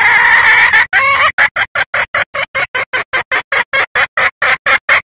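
Red junglefowl hen calling: a drawn-out, rising call for about a second, then a fast run of short clucks, about five a second, that stops abruptly near the end. This is the hen's call used as a lure to draw males and make them crow.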